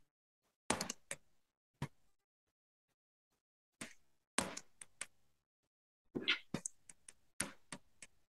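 Computer keyboard keystrokes: several short runs of quick key clicks, separated by pauses.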